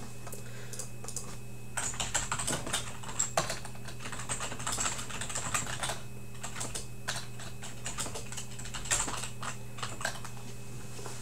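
Typing on a computer keyboard: a run of irregular key clicks over a low steady hum.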